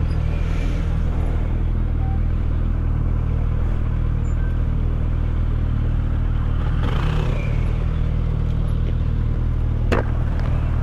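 Suzuki Hayabusa's inline-four engine idling steadily, with one short sharp click near the end.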